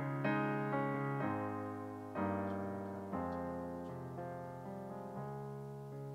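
Piano playing slow chords, each struck and left to fade, with a new chord about every second.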